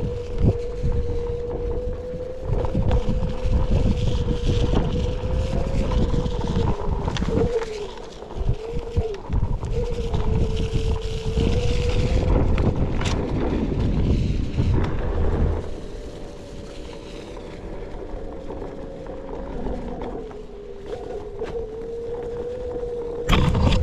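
Onewheel electric board's hub motor whining steadily as it rolls along a dirt trail, the pitch wavering slightly with speed, over a low rumble of wind buffeting the microphone that eases in the second half. A sharp knock near the end.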